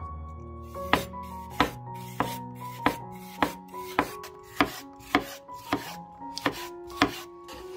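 Chef's knife slicing a bell pepper into strips on a bamboo cutting board: about eleven evenly spaced knife strikes on the board, a little under two a second.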